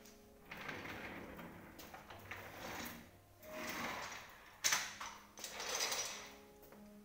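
Office chair being handled and moved: scraping and rattling of its base and parts in several stretches, with a sharp knock about four and a half seconds in.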